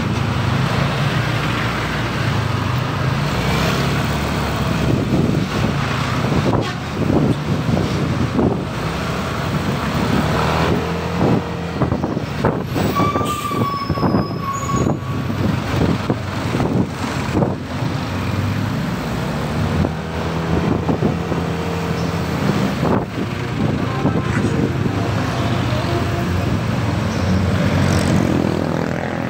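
Motor scooter riding in heavy road traffic: its engine runs under a steady wash of traffic noise from trucks and motorcycles close by. About halfway through there is a brief high tone, typical of a vehicle horn.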